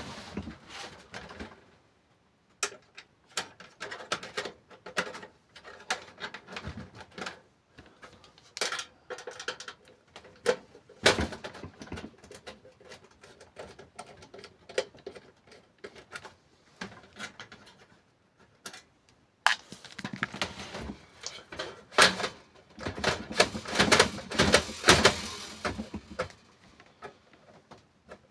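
Scattered clicks, taps and knocks of a desktop computer case and its parts being handled and unscrewed, with a denser run of rattling clicks about twenty seconds in.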